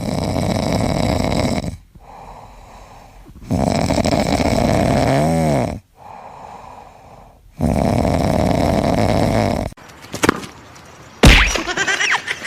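Loud snoring from a sleeping pet: three long, rasping snoring breaths about four seconds apart, the second with a whistling wobble in it. A few sharp clicks and a loud knock come near the end.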